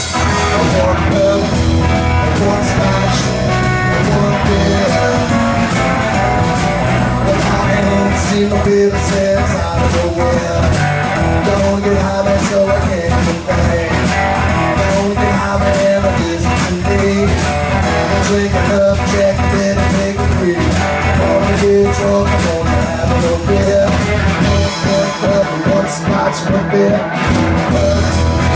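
Live blues-rock band playing: electric guitar over bass guitar and a drum kit. Near the end the bass and low drums drop out for about two seconds, then come back in.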